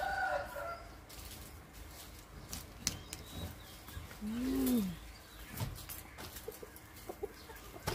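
Scattered clicks and rustling as freshwater snails and net bags are handled, with chickens in the background. About four and a half seconds in there is one short, low call that rises and then falls in pitch.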